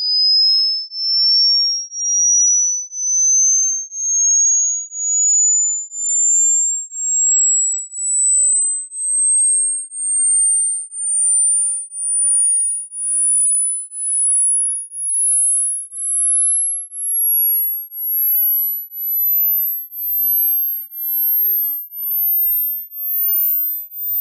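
Hearing-test tone: a pure sine tone beeping about once a second, each beep a step higher, climbing steadily from a high pitch to a very high one. The rising tones are meant to find the highest pitch the listener can still hear, a test of age-related hearing loss.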